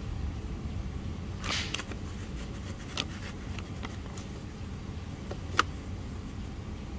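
A knife slicing a mango on a plastic bag: a few soft rustles and light clicks, one sharp click near the end, over a steady low rumble.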